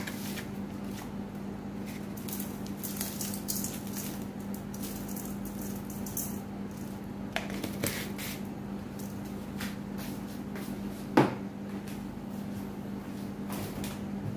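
Salt shaken and poured from a plastic canister onto raw pork hock in an aluminium pot: a run of gritty, hissing rattles over several seconds. A single sharp knock about eleven seconds in is the loudest sound, over a steady low hum.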